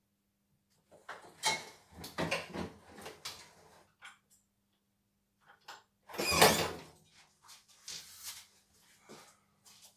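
Irregular knocks and scrapes of parts being handled during work on a car, the loudest a clunk about six seconds in, over a faint steady hum.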